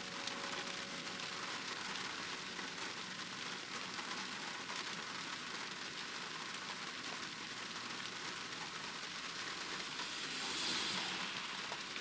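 Heavy rain falling steadily, an even hiss that swells a little for a moment about ten seconds in.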